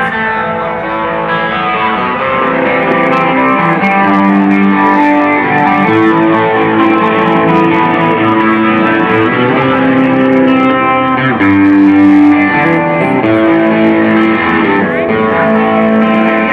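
Band music led by electric guitar, with held melodic notes that change about every second over a steady accompaniment.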